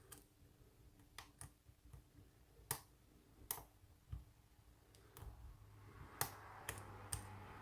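Light, irregular clicks of a hook pick working the pin stacks of a Euro cylinder lock held under tension, about ten over several seconds, with a faint hiss from about five seconds in.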